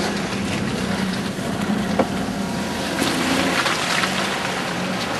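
Off-road vehicle engine running steadily, with a few short clicks and knocks over it.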